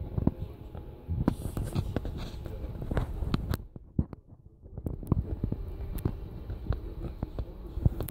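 Model passenger train running across an elevated viaduct: a low rumble with irregular clicks of the wheels on the track, fading briefly a little after halfway.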